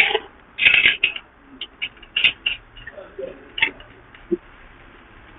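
A short metallic clatter about half a second in, then a few scattered clinks and taps: a hand tool working against metal while the oil filter is taken off from under the car.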